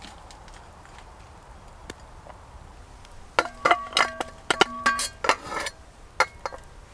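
Metal objects clinking: a quick run of sharp, ringing clinks starting about three and a half seconds in and lasting about two seconds, then a single clink near the end.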